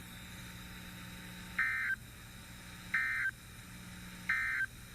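Emergency Alert System (SAME) end-of-message data tones from a NOAA Weather Radio broadcast: three short digital bursts about a second and a third apart, marking the end of the alert message. A faint low hum runs underneath.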